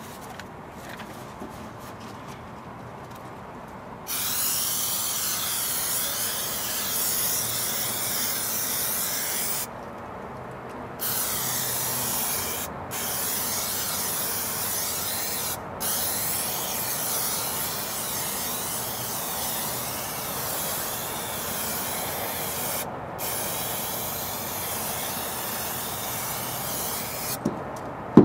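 Aerosol can of spray adhesive hissing as it is sprayed to glue down carpet. The spray starts about four seconds in and comes in long, even bursts, broken by a few brief pauses.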